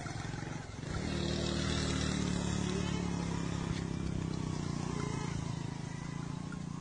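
An engine running steadily, its hum setting in about a second in and holding even.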